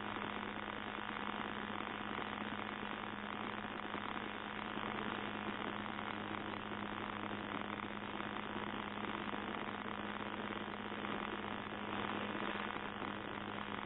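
Hirth F23 two-stroke flat-twin engine of a Sherwood Kub microlight at full climb power, heard faintly and muffled as a steady hum with a low tone under an even hiss.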